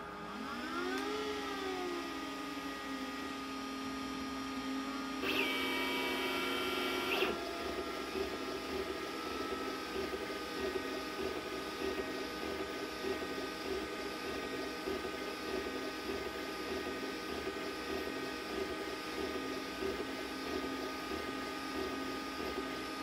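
Glowforge Basic laser engraver starting and running a print job, its internal fan off and exhaust drawn by an inline fan at half speed. Pitch rises and falls in the first few seconds, a louder, higher whirr comes in briefly around six seconds, then a steady hum with several tones settles in. Almost all that is heard is the laser arm moving.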